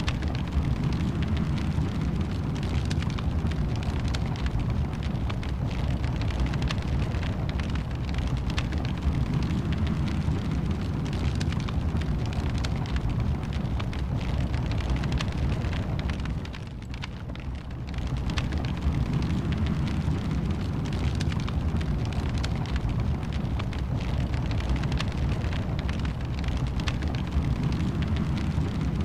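Wood fire burning in a fireplace: many small crackles and pops over a steady low roar, with a brief dip in loudness just past halfway.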